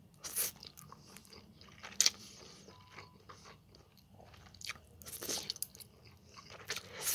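A person eating instant noodles: a few short slurps with quieter chewing between, the loudest slurp near the end.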